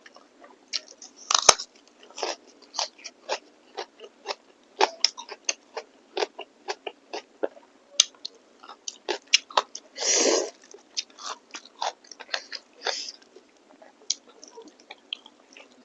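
Close-up mouth sounds of a person eating beef innards and meat curry: wet chewing and lip smacks in quick irregular clicks, with one longer, louder noisy sound about ten seconds in.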